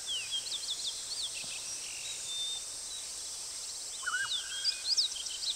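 Forest ambience: small birds chirping in short, quick notes that sweep up and down, over a steady high hiss.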